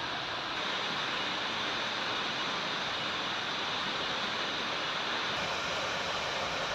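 Waterfall pouring: a steady, even rush of falling water, slightly louder from about half a second in.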